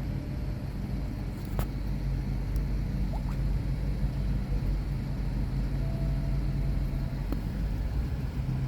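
Steady low motor rumble, like a vehicle engine running at idle, with a few faint clicks.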